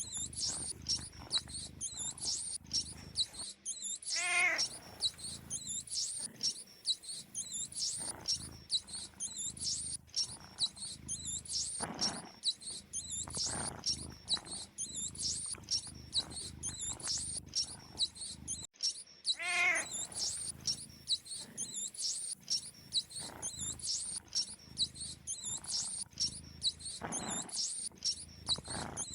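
Rapid high-pitched mouse squeaking keeps going throughout, in a looped soundtrack made for cats. A cat's wavering meow sounds twice, about fifteen seconds apart.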